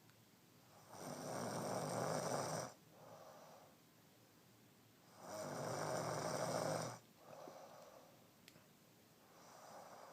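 Heavy snoring from a sleeper: two loud, rattling snores about four seconds apart, each lasting under two seconds, with softer breaths between them and another snore starting near the end.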